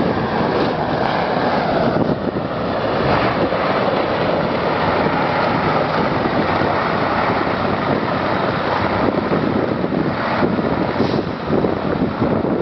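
KamAZ truck's V8 diesel engine running hard as the truck ploughs through deep snow, with wind buffeting the microphone.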